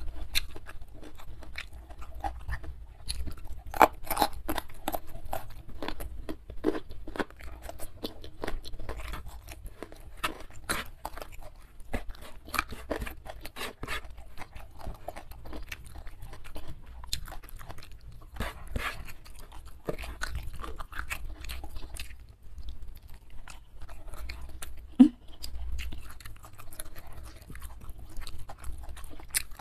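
Close-miked chewing and crunching of young jengkol beans with rice and sambal: irregular crisp bites and wet mouth sounds throughout, with a brief low hum about three-quarters of the way through.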